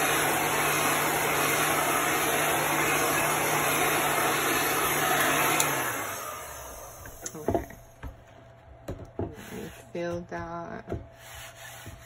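Hand-held heat gun blowing steadily to dry paint on a wooden board, switched off about six seconds in and winding down. After that, a hand rubbing over the painted wood, with a few light knocks.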